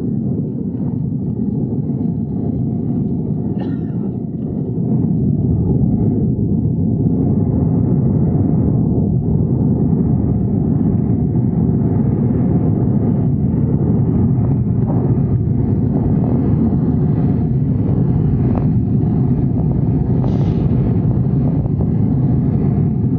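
Steady low jet-engine and airflow rumble inside an Airbus A320-family airliner cabin, growing louder about five seconds in and then holding level.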